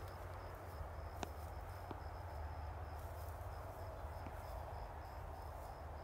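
An insect chirping steadily: a high, even pulse repeated about four times a second, over a low rumble, with one sharp click about a second in.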